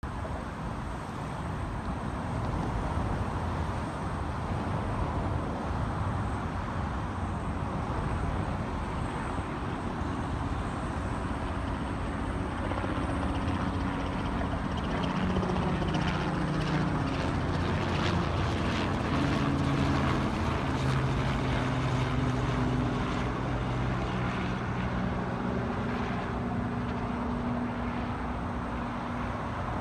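Helicopter flying overhead: a steady engine and rotor drone, its engine tones shifting in pitch through the middle, where a rapid rotor beat is most distinct.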